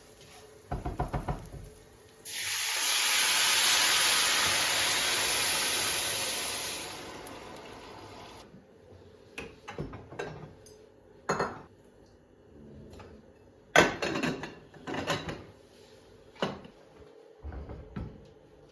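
A kitchen tap runs for about five seconds, starting abruptly and then tapering off. It is followed by scattered clinks and knocks of dishes and utensils.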